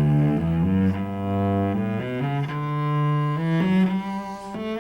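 Solo cello bowing a scale in which the tonic and subdominant notes are stressed, some notes held longer than the others.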